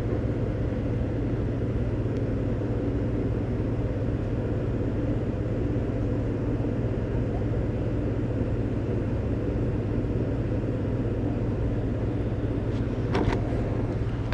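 Steady low engine-like rumble, with one short knock near the end.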